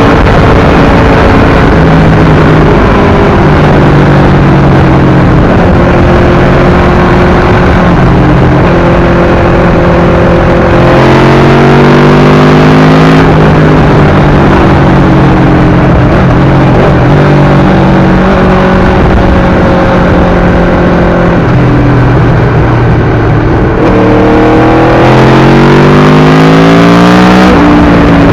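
Aprilia RSV4 1000's V4 engine through an SC-Project exhaust, heard from the bike while riding. It runs at a steady pitch with small throttle changes, then twice accelerates hard, about a third of the way in and again near the end, the pitch rising quickly and dropping sharply at an upshift.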